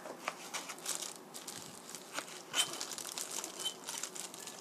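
Kitchen knife cutting the fat off a piece of pork neck on a plastic cutting board: irregular faint clicks of the blade on the board, mixed with crinkling of a thin plastic glove on the hand holding the meat.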